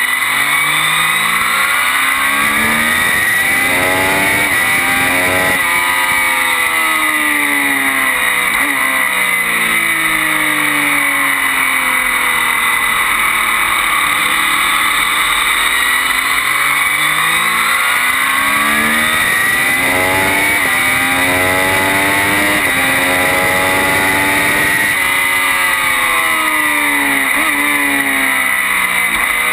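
Triumph Daytona 675 inline-three engine at racing speed, revs climbing and dropping again and again through gear changes, sinking to a low point about halfway through before pulling hard again, with wind rush throughout.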